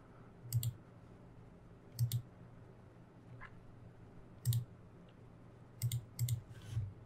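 Computer mouse clicking: about six separate clicks at irregular gaps, three of them in quick succession near the end.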